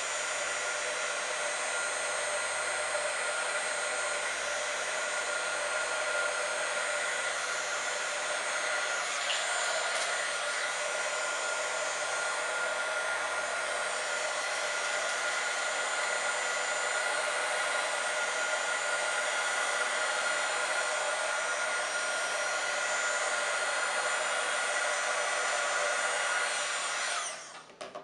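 Handheld craft heat tool running steadily, blowing hot air with a steady whir and hum of several tones; it is switched off about a second before the end and winds down.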